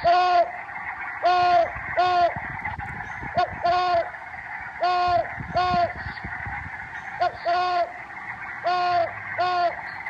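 Great horned owl calling: short, arched, pitched notes, mostly in pairs, a pair about every two seconds. This is one of the many calls the species makes besides its familiar hoot.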